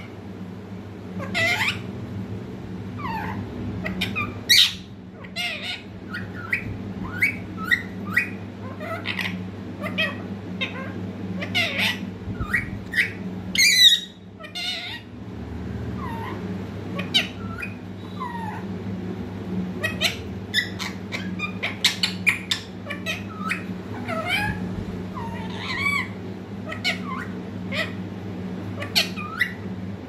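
A young green parakeet calling: a steady run of short chirps and squawks, with one louder squawk about halfway through. A steady low hum runs underneath.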